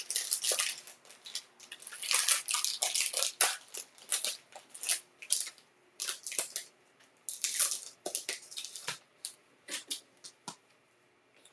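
Plastic wrapping on a trading card box being torn open and handled: a quick run of irregular crackling rustles that thins out after about nine seconds.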